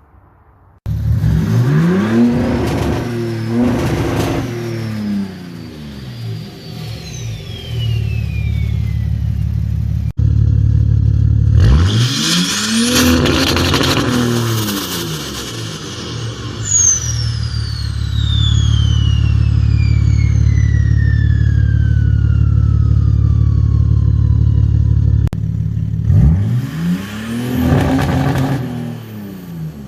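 BMW 330d M57 straight-six diesel with a big turbo and straight-through 4-inch exhaust, revved up and dropped back three times. After each rev the turbo whistles in a long high falling glide as it spools down while the engine settles to a steady low idle.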